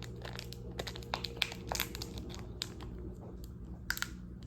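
Plastic packet crinkling and crackling as it is handled and pulled at in an attempt to open it, with irregular sharp crackles over a steady low hum.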